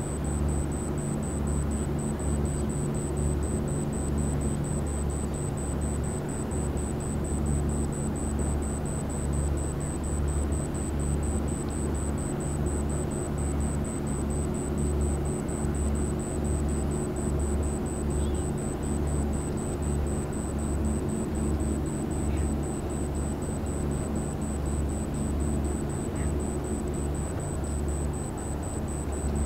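Large car ferry's engines running as it leaves port: a steady low drone that throbs evenly about once or twice a second, with a constant hum over it.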